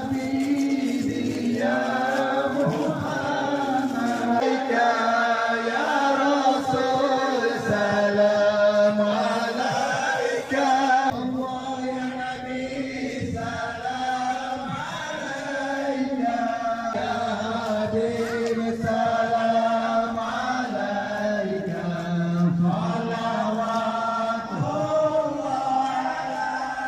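A group of men's voices chanting an Islamic devotional chant together, in long held, slowly changing melodic lines.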